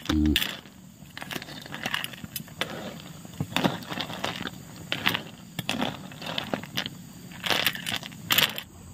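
Freshwater snail (langkitang) shells clinking and clattering against each other and the pot in irregular clicks, with a couple of louder knocks near the end.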